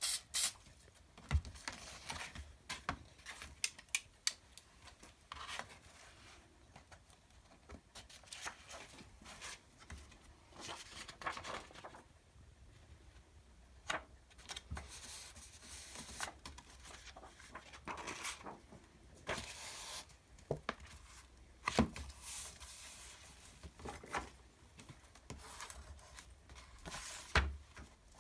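Paper being handled: irregular rubbing, rustling and tearing strokes, with occasional sharp taps.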